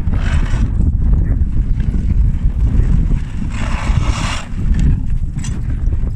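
Dog sled running over snow behind a running dog team: a steady low rumble from the moving sled, with a louder rushing hiss of snow swelling for about a second, about three and a half seconds in.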